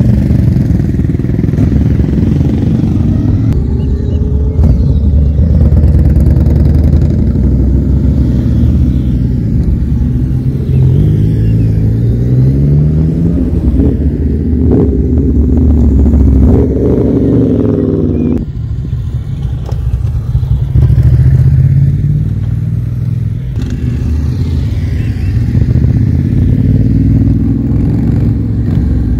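Motorcycles riding past one after another, engines pulling away with their pitch rising as they accelerate.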